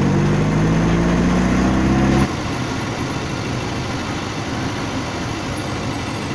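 Vehicle engine running at a steady speed, heard from inside the cabin. About two seconds in it cuts abruptly to a quieter, rougher rumble of engine and road noise.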